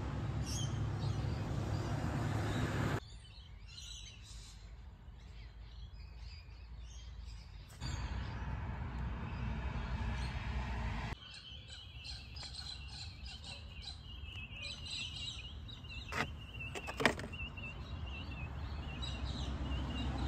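Birds chirping and singing, in some stretches under a steady low rumble and hiss. Two sharp clicks come near the end, the second louder.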